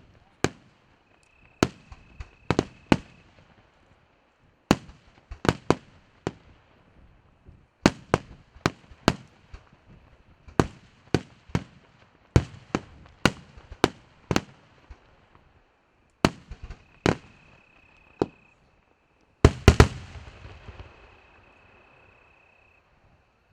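Aerial fireworks shells bursting: sharp bangs in quick, irregular clusters. About twenty seconds in, a dense volley of bangs leaves a crackling tail that fades away.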